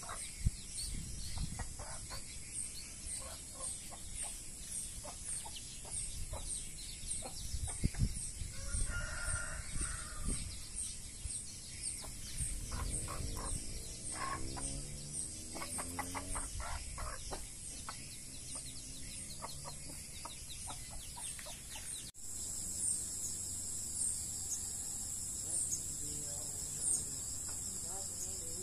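Domestic chickens clucking, with a drawn-out crowing call in the middle, over a high insect chirp that repeats about twice a second. After a sudden change about two-thirds of the way in, mainly the insect chirping is left, slower.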